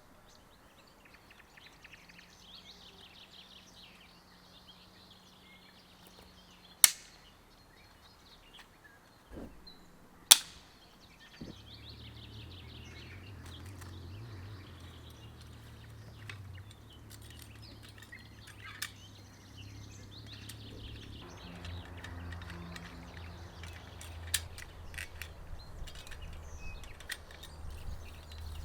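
Two sharp, loud knocks about three and a half seconds apart, then a low steady hum that begins shortly after the second knock, over faint bird chirps.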